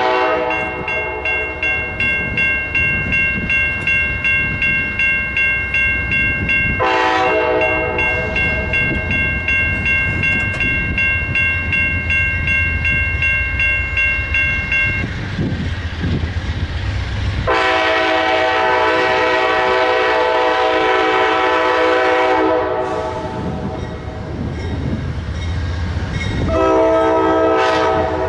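Horn of an Amtrak GE P42DC diesel locomotive sounding a series of long blasts with short gaps, the last starting near the end. The train rumbles underneath, with a rhythmic clatter of wheels over rail joints for the first several seconds.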